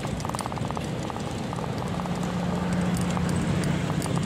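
Bicycle ridden over paving stones, the rear freewheel ticking rapidly in runs as the rider coasts. A steady low hum comes in about halfway through.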